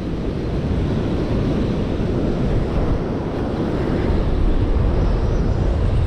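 Wind buffeting the microphone over the steady wash of surf, mostly a low rumble.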